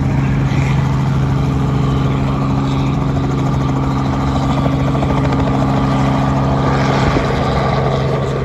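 Light two-blade helicopter lifting off and flying away: a loud, steady drone of engine and rotors.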